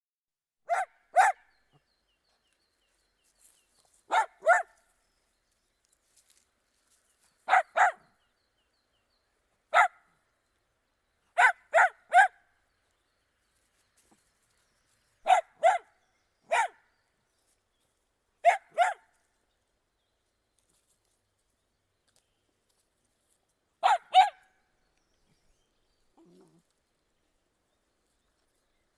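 Dachshund barking: sharp, high barks in quick clusters of one to three, with pauses of a few seconds of silence between clusters. A faint low sound comes a couple of seconds after the last cluster.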